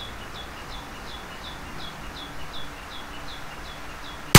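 A Glock 44 pistol fires one sharp .22 LR shot near the end, the loudest thing by far. Before it, a high chirp repeats steadily about three times a second.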